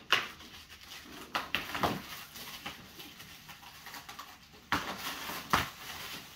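Plastic stretch wrap being pulled and torn off a shipping crate by hand: irregular crinkling and crackling with a few sharper rips, the loudest about two seconds in and again around five seconds.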